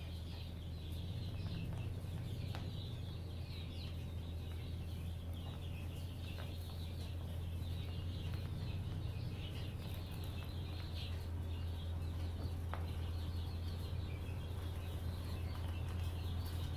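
Pickup truck's engine running with a steady low rumble as the truck slowly reverses toward the barn. A faint high, wavering chatter runs above it.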